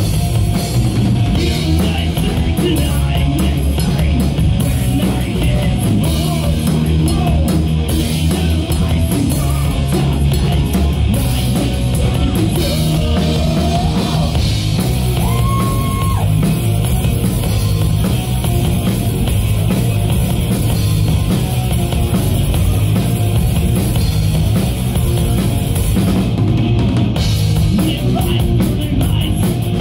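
Live rock band playing: electric guitars, bass guitar and a drum kit, with a singer's lead vocals.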